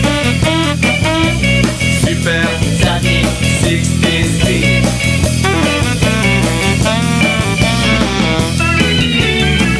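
Background music: an upbeat instrumental track with guitar and a steady beat.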